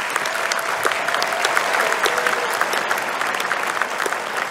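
A large audience applauding steadily: many hands clapping at once in a dense, even patter.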